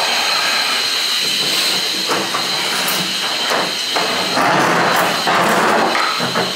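Milwaukee M18 battery drum drain snake running, its 7/8-inch spring cable spinning and rattling in a floor drain clogged with roots and wet wipes. A steady high whine stops about two-thirds of the way through, and a denser rattling noise follows.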